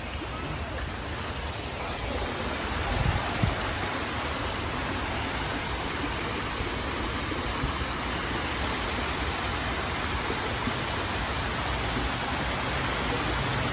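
Water steadily running and splashing down a small artificial waterfall over rocks.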